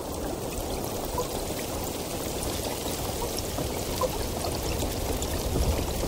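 Water flowing steadily, with many small bubbling plinks over a continuous rushing hiss.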